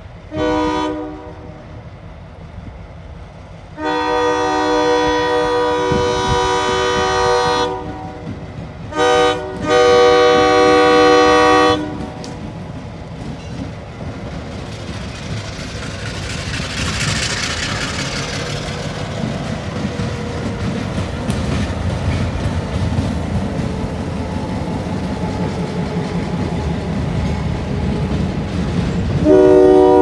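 EMD MP15AC diesel switcher locomotive blowing its multi-note air horn for a grade crossing: a short blast, a long one of about four seconds, another short and another long, then again near the end. Between the blasts the diesel engine and the train's wheels rumble and clack past, loudest as the locomotive goes by in the middle.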